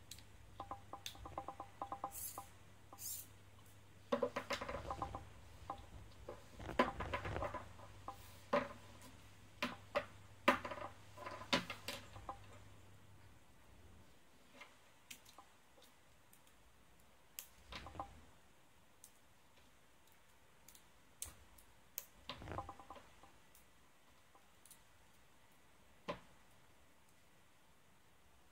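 Small plastic robot parts clicking and rattling as they are handled and pressed together onto a servo, in clusters of quick clicks in the first half and scattered single clicks later. A faint low hum stops about halfway through.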